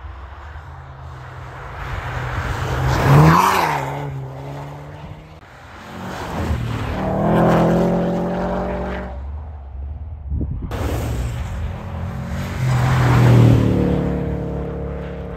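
Cars being driven hard and sliding on a snowy ice track, one of them a Subaru Impreza. Their engines rev up and ease off in three swells: the first rises in pitch about three seconds in, the next comes around seven to nine seconds, and the last, with the first, loudest, comes near the end.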